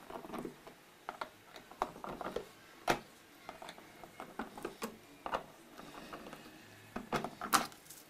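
Small screwdriver turning screws out of a washing machine spinner's plastic back cover panel: scattered light clicks and scrapes of metal on screw heads and plastic, the sharpest about three seconds in and a few more near the end.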